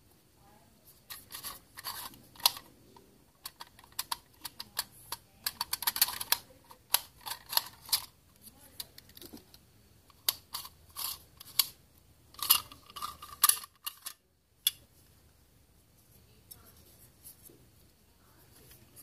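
Plastic parts of a Nikon Coolpix P900 lens barrel clicking and knocking as they are handled and pulled apart. Many sharp clicks come in quick runs, then stop about fourteen seconds in.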